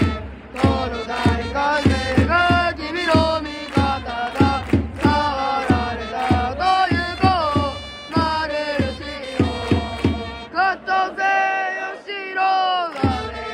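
Baseball cheering section's trumpets and drums playing a player's cheer song, with the crowd chanting along. Steady drum beat under held, punchy brass notes; the drums drop out briefly near the end.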